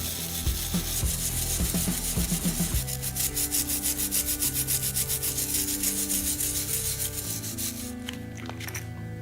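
Rhythmic back-and-forth hand abrading, sanding or filing, at about four to five strokes a second, stopping about eight seconds in.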